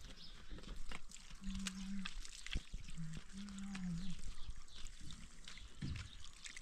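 Rough stones clicking and knocking as they are set in place by hand, with two low, drawn-out moos from a cow, about one and a half and three seconds in, the second rising partway through.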